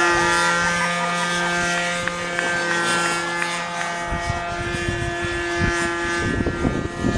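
Radio-controlled model airplane's motor and propeller droning overhead at a steady pitch. From about four seconds in, a low irregular rumble comes in underneath.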